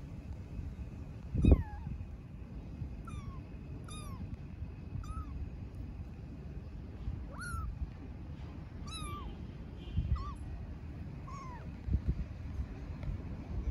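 A young kitten meows over and over, calling for its mother cat: about eight short, high meows that fall in pitch, a second or so apart. A low thump about a second and a half in is louder than the meows, with softer thumps near the end.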